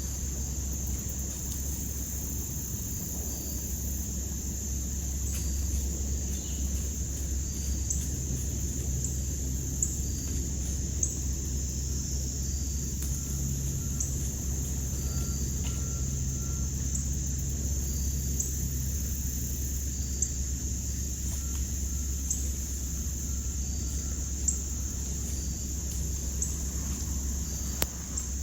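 Crickets and other insects trilling steadily in a continuous high chorus, with short repeated chirps, over a steady low rumble and a few faint clicks.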